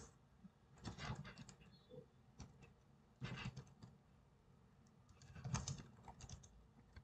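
Faint typing on a computer keyboard, in three short bursts of keystrokes: about a second in, about three seconds in, and again from about five seconds in.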